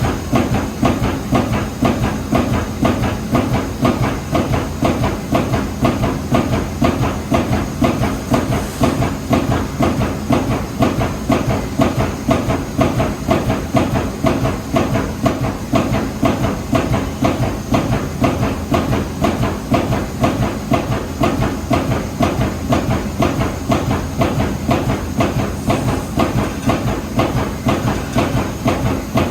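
Amada Pega 357 CNC turret punch press cycling, its ram hitting in a fast, steady rhythm of strokes that runs without a break.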